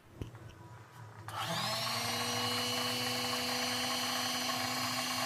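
A click, then about a second in the Usha Janome Allure DLX sewing machine's motor spins up, rising briefly in pitch, and runs steadily, driving the automatic bobbin winder with the handwheel disengaged so only the winder turns.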